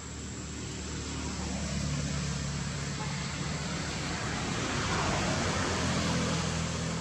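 A motor vehicle passing, its engine hum and road noise swelling to a peak about five seconds in and then easing off.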